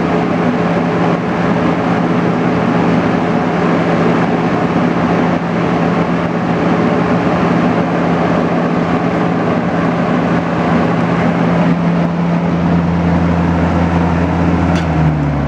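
Vintage Galaxy 3714 box fan with an RMR motor running on high speed: a steady rush of air over a constant low hum. Near the end there is a click as it is switched off, and the hum starts to fall.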